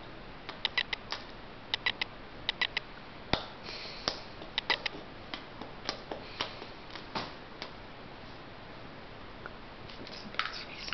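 Baby chewing a mouthful of blueberries: short wet mouth clicks and smacks, several in quick runs of three or four.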